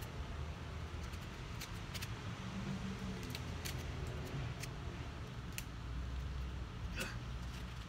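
Rubber bands being stretched and snapped onto a watermelon: scattered faint clicks and snaps, one a little sharper about seven seconds in, over a steady low rumble of outdoor background.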